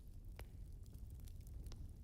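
Fireplace fire burning: a faint, steady low rumble with a couple of sharp crackles, one about half a second in and another near the end.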